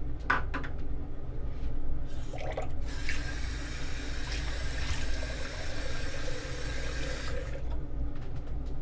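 A tap running into a sink for about four seconds, turned on about three seconds in and shut off near the end, over a steady low hum.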